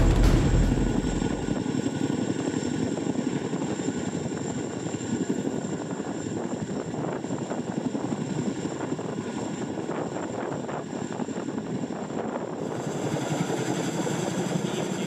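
Boeing CH-47 Chinook tandem-rotor helicopter hovering: dense rotor and engine noise with a steady high whine above it, growing brighter near the end.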